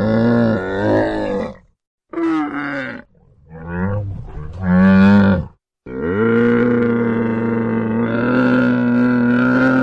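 Camel calling: four drawn-out calls separated by short silent gaps, the last one long and steady, lasting about four seconds.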